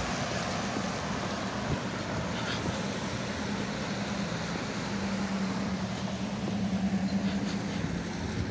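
Cars passing on a rain-wet street, tyres hissing on the wet pavement. A steady low engine hum comes in about halfway through and grows a little louder near the end.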